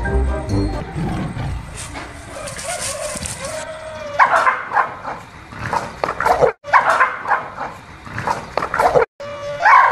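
A dog barking repeatedly in sharp bursts from about four seconds in: alarm barking at a life-size toy tiger it takes for a threat. A short stretch of music fades out at the very start.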